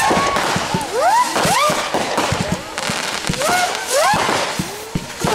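Fireworks going off in quick succession: many sharp bangs and crackles, mixed with several short whistling tones that rise in pitch.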